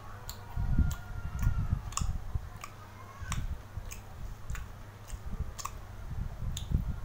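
Close-up eating sounds: sipping from a ceramic bowl and chewing, with about a dozen short, sharp wet mouth clicks scattered irregularly over low rumbling handling noise.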